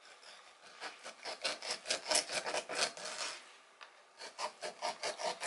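Kitchen knife sawing slits through a whole croaker's scaled skin on a wooden cutting board: quick rasping strokes, about four or five a second, with a short pause about four seconds in.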